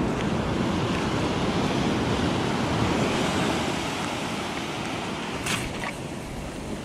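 Surf breaking and washing up a sand beach, a steady rush of waves that eases a little after the middle. Two short clicks come close together about five and a half seconds in.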